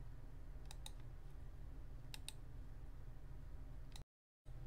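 Computer mouse clicks: two quick double clicks, about a second in and about two seconds in, then a single click just before the sound cuts out abruptly as the screen recording is stopped. A low steady hum sits underneath.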